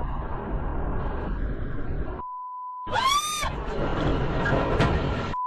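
Road and engine noise inside a moving car, cut off about two seconds in by a steady high-pitched censor bleep. A short cry that rises and falls follows, then rumbling noise again, and the bleep returns near the end.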